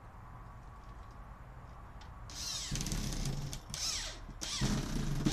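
Scraping and creaking of a wall-mounted security camera and its bracket being twisted by hand to adjust its aim. The sound comes in three rough bursts, starting a couple of seconds in.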